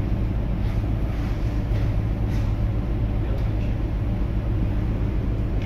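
Steady low rumble aboard a large container ship underway, mixed with noise from wind on the microphone.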